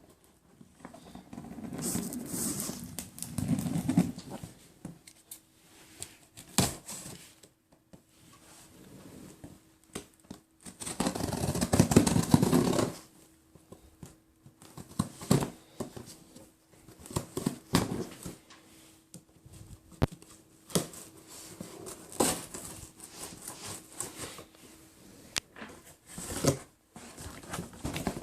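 Packaging handled while a shipping box is opened: irregular knocks, clicks and scraping, with one longer, louder stretch of tearing or rustling about eleven seconds in.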